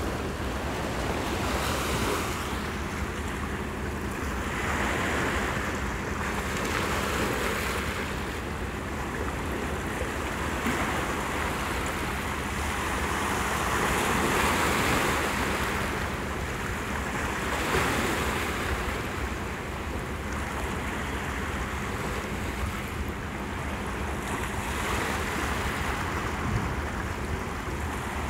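Small sea waves washing and breaking over shoreline rocks, the surge swelling and ebbing every few seconds, with wind rumbling on the microphone.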